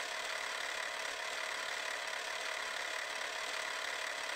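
Steady whirring hiss with no rhythm and no change in pitch, a sound effect laid under an animated logo intro.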